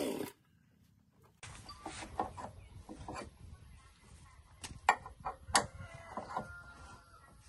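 The chainsaw engine driving a homemade wood lathe cuts off suddenly at the very start. After a short silence come light metal clicks and knocks as the lathe's tailstock screw and crank handle are worked by hand, the two sharpest about five seconds in.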